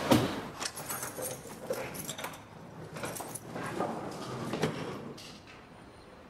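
Keys and a door lock clicking and rattling as a door is unlocked and pushed open: a run of light clicks and knocks that fade out near the end.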